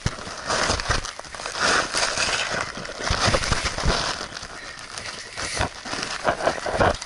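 Rustling and scraping of clothing and gear against cave rock, with irregular knocks and handling noise from the camera, as someone crawls through a narrow cave passage.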